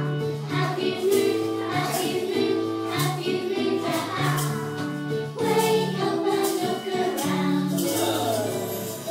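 A group of young children singing a nativity song together over instrumental accompaniment with a steady beat.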